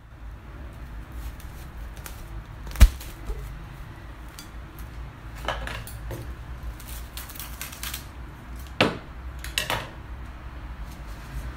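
Plastic cling film being pulled from its roll and stretched over a ceramic plate, crinkling and crackling in several short spells, with a single sharp knock about three seconds in, the loudest sound.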